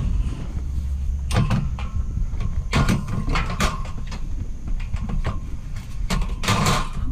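Pieces of scrap metal being handled, with knocks and clanks about a second and a half in, around three to three and a half seconds, and again at six to six and a half seconds, over a steady low rumble.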